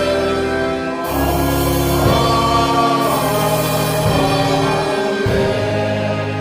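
Gospel music with singing: held chords that change about a second in and again near the five-second mark.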